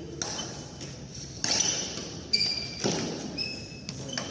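Badminton rally: rackets strike the shuttlecock with sharp smacks, four times in about three seconds, while sneakers give short high squeaks on the court floor.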